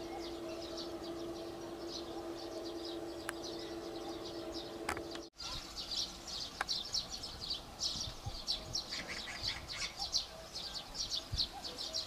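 Small birds chirping: a dense run of short, high chirps that grows fuller about five seconds in, where a steady low hum cuts off suddenly.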